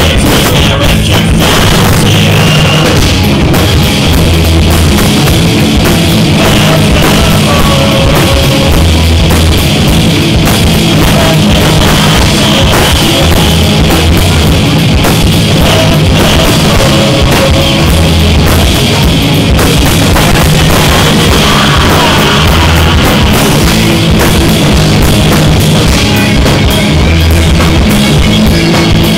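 Live rock band playing loudly: electric guitars over a pounding drum kit, one continuous stretch of a song.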